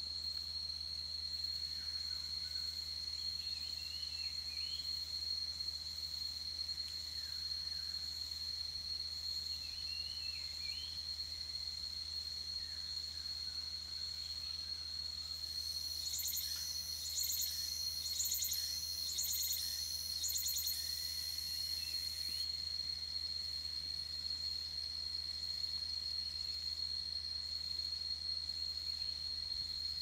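A cicada chorus keeps up a steady, high-pitched whine. A few short chirps come and go, and about halfway through a louder, pulsing buzz joins in for around six seconds before it stops.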